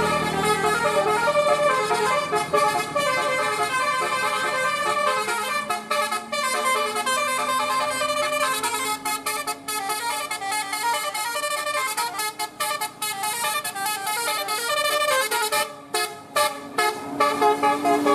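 Indonesian bus 'telolet basuri' multi-tone air horn playing a fast melody of short, rapidly changing notes. A low hum underneath slowly rises in pitch, and the horn breaks off briefly a few times near the end.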